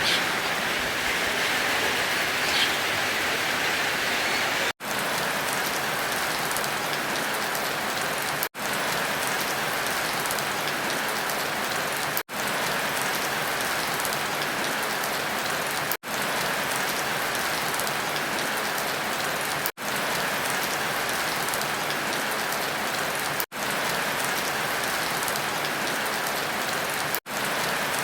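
Steady rain pattering on a surface, broken by very short dropouts about every four seconds.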